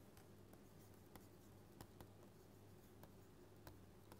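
Near silence, with faint scattered taps and ticks of a stylus writing on a pen tablet, over a faint low hum.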